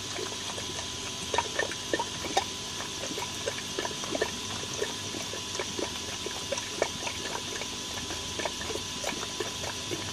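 Air-lift pond filter bubbling: a steady hiss of water and air with frequent small, irregular plops and gurgles.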